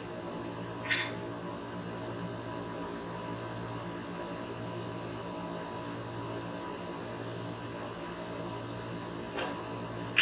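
Steady low hum in a small room, broken by a sharp click about a second in. Near the end comes a light click as the cue strikes the cue ball, then a louder crack as the cue ball hits a red.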